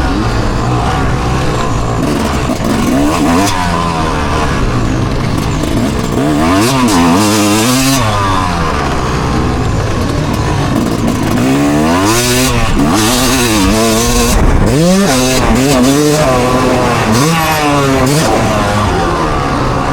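Loud engine revving up and dropping back repeatedly, its pitch rising and falling every second or two, as when a vehicle accelerates and backs off while being ridden hard.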